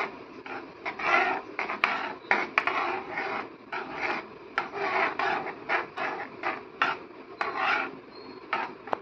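Steel ladle scraping around a metal kadhai as kadhi is stirred without pause, in quick repeated strokes about two to three a second, with an occasional sharper click of metal on metal. The constant stirring before the boil keeps the yogurt-and-gram-flour kadhi from splitting.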